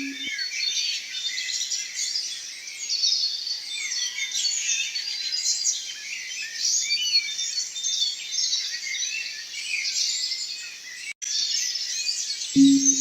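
Many songbirds chirping and warbling over one another, a dense birdsong chorus, which cuts out for an instant about eleven seconds in. A low steady hum is under it at the very start and comes back just before the end.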